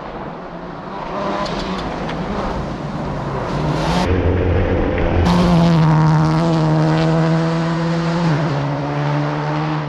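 Rally car engines at full throttle on a gravel stage: revs climb, then hold high and steady, dropping in pitch with a gear change near the end. The sound changes abruptly twice around the middle as one shot gives way to another.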